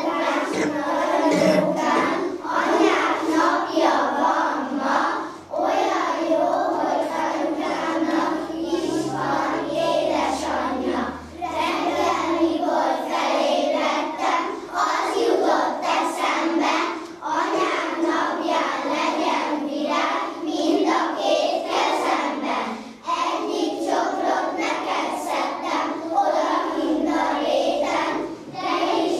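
A group of young children singing a song together in unison, in long phrases with brief breaks between them.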